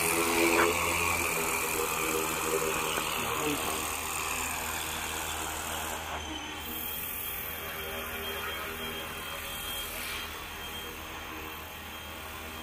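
FW450 V3 electric RC helicopter's motor and main rotor running with a steady whirring hum as it lifts off the ground, gradually fading as it climbs away.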